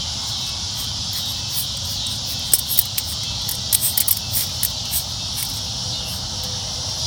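Balisong (butterfly knife) handles and blade clicking against each other as the knife is fanned, a scattered run of sharp clicks mostly between about two and a half and five seconds in. Under them is a steady, high chorus of crickets.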